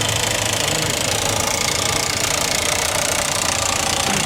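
A large engine running steadily at idle, with a strong hiss over a low hum.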